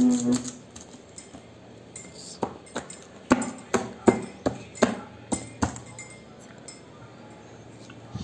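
Light, sharp clicks and clinks from fingers tapping and pressing along the wrapped rolls of ceramic poker chips in their plastic case. There are about ten separate clicks, starting about two seconds in and ending a little past halfway.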